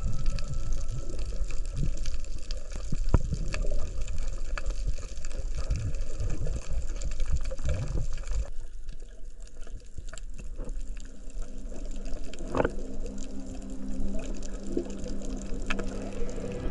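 Water moving around an underwater camera: a dense low rumble and sloshing with scattered sharp clicks. About halfway through the higher sounds drop away, leaving mostly the low rumble with a few steady low tones.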